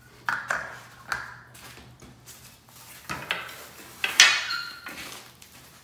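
Black metal rowing-machine foot pieces being handled and set down, making a series of knocks and clanks, the loudest about four seconds in.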